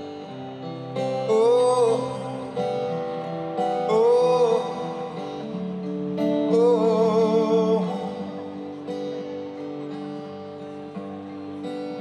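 Live music: an acoustic guitar rings out held chords while a male voice sings three long wordless notes that bend in pitch, the last one wavering with vibrato; the sung notes are the loudest moments.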